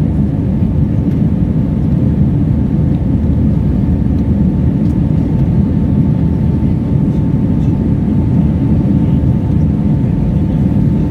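Cabin noise aboard an Airbus A320 in its climb after takeoff: a steady, loud, low drone of the engines and rushing air, with a faint steady whine over it.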